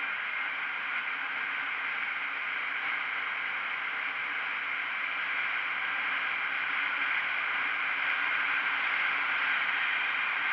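Steady rush of wind and road noise while riding a KTM Duke 125 motorcycle, with the hum of its single-cylinder engine faint beneath; it grows a little louder over the last few seconds.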